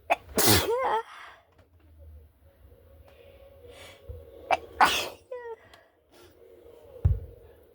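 A girl sneezing hard twice, the first sneeze about half a second in and the second about five seconds in. A short low thump comes near the end.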